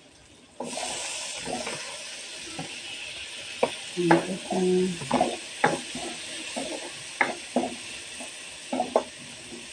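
Diced tomatoes dropped into hot oil in a wok, sizzling that starts suddenly about half a second in. The ladle scrapes and knocks against the wok as the tomatoes are stirred.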